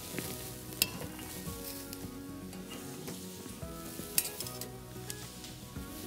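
Metal tongs clinking against a saucepan and a glass blender jar as boiled tomatoes are lifted out of their cooking water and dropped in, with sharp clicks about a second in and about four seconds in, over a steady hiss from the pot simmering on the gas burner.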